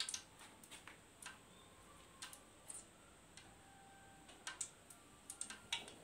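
Ghee heating in a metal karahi, giving faint, irregular ticks and small crackles spread through an otherwise quiet stretch.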